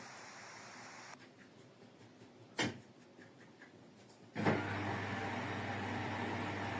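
Front-loading washing machine: a single knock, then about four and a half seconds in a steady mains hum with a rushing noise switches on abruptly and keeps going, as when its pump or water valve starts.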